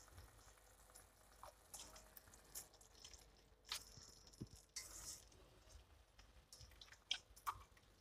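Mostly near silence, with faint scattered clicks and soft wet drips as boiled spaghetti is lifted with tongs and dropped into a pan of tomato sauce.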